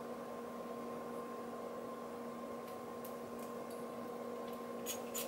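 Steady electrical hum with faint hiss, and a few faint light clicks in the second half as glass perfume bottles are handled.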